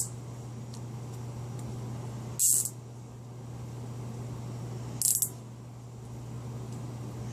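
Nylon zip tie being pulled tight through its ratchet around the spinner's bearings: two short zips about two and a half seconds apart, over a steady low hum.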